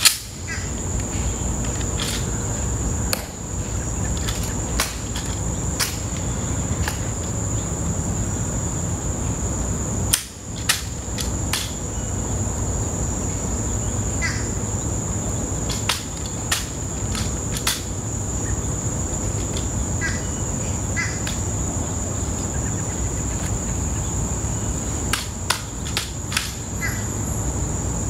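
Sharp, scattered clicks and taps of an honor guard's ceremonial rifle inspection, the rifle handled and passed between two sentinels and their heels clicking, with a cluster of clicks about ten seconds in. Under it, a steady high drone of insects.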